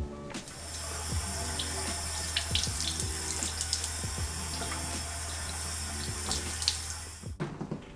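Bathroom washbasin tap running in a steady stream, with a few splashes as the face is washed in the water; the flow stops suddenly near the end.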